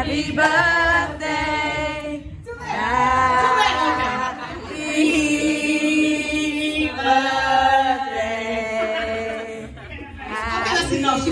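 Voices singing without instrumental backing, in long held notes with two short breaks.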